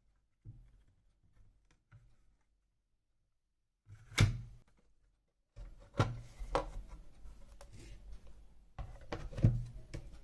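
Hands working on a mechanical keyboard's parts: faint handling noises, then a sharp click about four seconds in, and from about six seconds on a string of irregular clicks and knocks, the loudest near the end.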